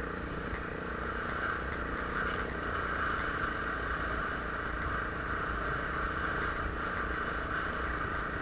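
Enduro motorcycle engine running steadily while the bike rides over snow.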